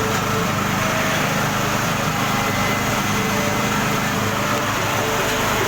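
Rotary dryer oven machine running: a steady, even mechanical drone with a constant motor hum.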